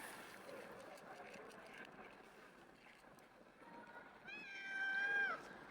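A cat meowing once near the end: one drawn-out meow about a second long, holding its pitch and dropping at the close.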